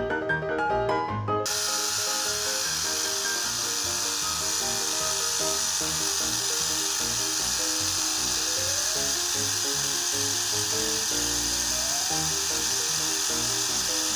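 A small homemade electric-motor tool starts running about a second and a half in, with a steady high hiss, under background music.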